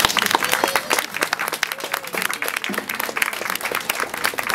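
A crowd of onlookers applauding, a dense patter of hand claps.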